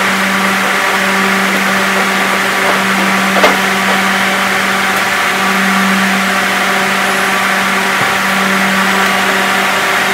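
Electric forklift's hydraulic lift motor running with a steady hum as the mast handles a pallet on a high rack, with one sharp click a few seconds in.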